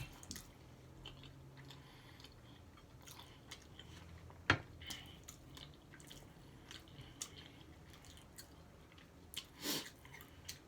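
A person chewing food close to the microphone: soft, faint mouth clicks, with a sharper click about four and a half seconds in and a short cluster of louder ones near the end.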